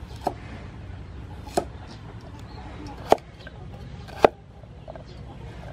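Steel cleaver chopping a carrot on a thick round wooden chopping block: four sharp strikes about a second or so apart, the last two loudest.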